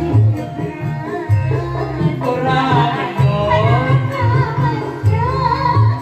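Music with a singer over a drum beat; the singing voice becomes stronger about two seconds in.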